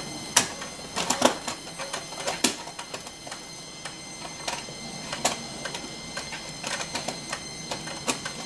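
Amiga floppy disk drive reading a disk: irregular clicks and knocks of the head stepping from track to track, here reading a freshly cleaned disk that once gave a read error. A faint steady high whine lies underneath.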